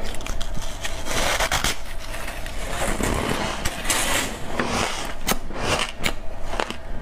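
Freezer frost being bitten and chewed close to a clip-on microphone: a dense run of crunching and crackling.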